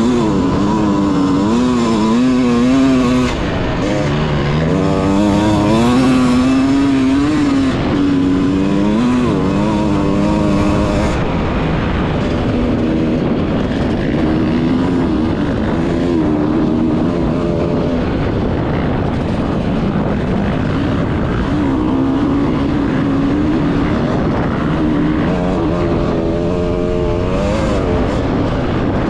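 Off-road racing engines running and revving, their pitch rising and falling, over a steady noisy rush.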